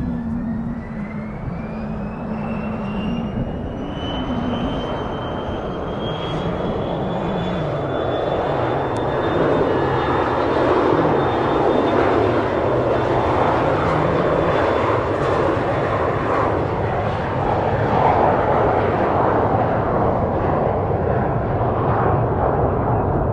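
Twin turbofan engines of a Dassault Falcon 2000EX business jet spooling up to takeoff power: a whine rising in pitch over the first several seconds, then a loud, steady jet roar as the aircraft accelerates down the runway on its takeoff roll.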